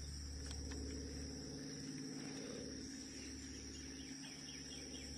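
Quiet creekside ambience: insects droning steadily at a high pitch over a low rumble, with a few faint ticks about half a second in and faint repeated chirps near the end.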